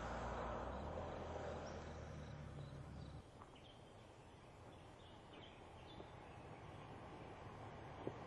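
2011 Ford Explorer's engine and tyre noise fading as it drives away, cut off abruptly about three seconds in. After that, faint bird chirps over a low outdoor hum, with the vehicle sound starting to rise again near the end.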